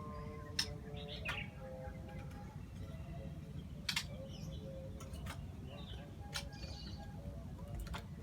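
Songbirds giving short, sharp chirps every second or so over a steady low background rumble.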